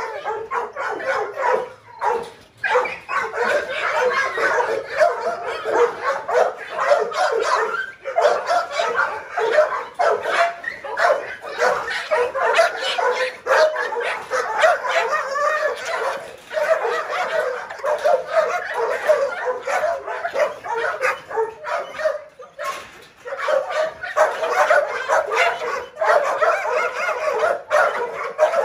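Several pit bull-type dogs in a kennel barking, yipping and whining in short, high calls almost without pause, eager to be fed.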